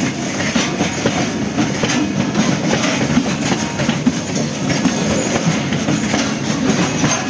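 Train running along the track: a steady rumble with the clickety-clack of its wheels knocking on the rails.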